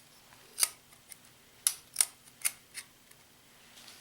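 A magnet clicking against a steel plate from an old cassette player, about six short sharp clicks spread over the few seconds. The magnet sticks, so the plate is steel, not aluminum.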